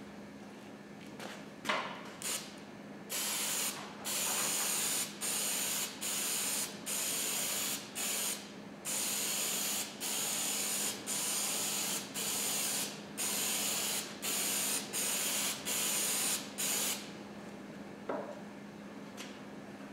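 Aerosol can of spray-on adhesive hissing in a quick series of about fifteen short bursts, each under a second, that stops near the end. A few light clicks come before the spraying begins.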